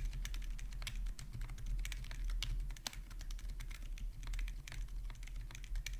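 Continuous typing on a foamless custom mechanical keyboard with Akko Penguin switches, a brass plate and double-shot PBT Cherry-profile keycaps: a fast, irregular stream of key clicks and keystrokes.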